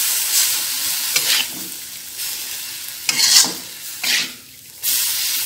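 Metal spatula stirring and tossing stir-fried cassava leaves in a wok, with a few louder scrapes against the pan. Under it the leaves keep sizzling with the stove just switched off at the end of cooking.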